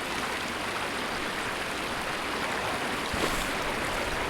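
Steady rushing of flowing water, an even noise without pauses or distinct events.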